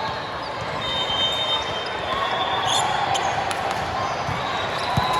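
Volleyball play on a gym court: shoes squeaking on the floor and the ball being struck, with the sharpest hit just before the end, over a murmur of spectators' voices.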